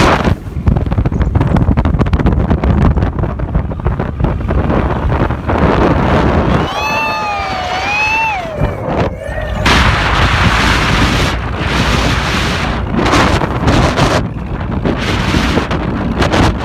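Wind buffeting the microphone on an open-top vehicle riding over sand dunes. About seven seconds in, a person lets out one long high yell that rises and falls.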